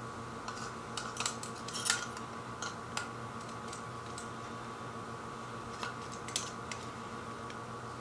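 Scattered light clicks and metallic taps from steel calipers being slid and fitted against a camera adapter, the loudest about two seconds in, over a steady hum.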